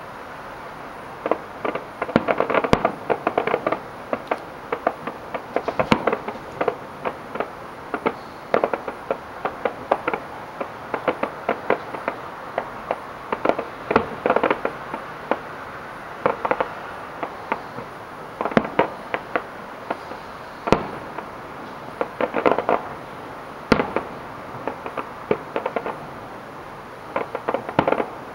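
Fireworks show: aerial shells bursting in rapid clusters of sharp pops and crackles, with a few louder single bangs standing out.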